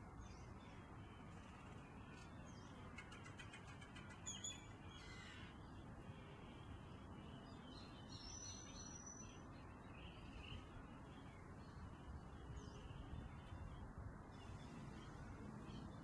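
Faint bird calls over a steady low background hiss: a few short high chirps, a brief call about four seconds in, and a held high note lasting about a second around eight seconds in.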